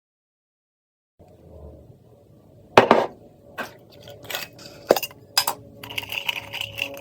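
A run of light clicks and clinks of small hard objects, irregularly spaced, the sharpest about three seconds in, over a faint steady hum. The first second is silent.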